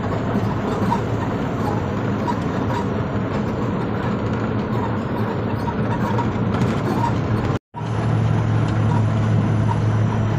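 Heavily loaded truck driving, heard from inside the cab: a steady engine drone with road noise. The sound cuts out for a moment about three-quarters through, and the low engine hum is stronger after it.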